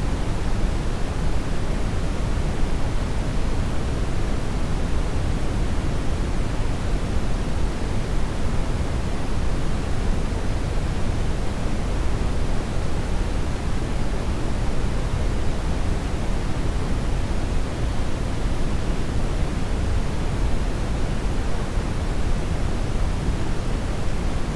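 Steady synthesized noise that stays even and unchanging throughout. Most of its weight sits in the low end and it thins out toward the top, heard as a pink-noise-like hiss over a rumble.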